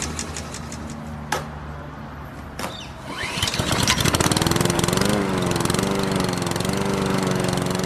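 Small lawn mower engine being pull-started: two short pulls, then about three seconds in it catches, rises and settles into steady running.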